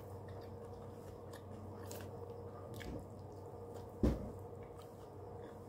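Someone eating a wrapped snack: quiet chewing and small clicks, with one louder bite about four seconds in, over a steady room hum.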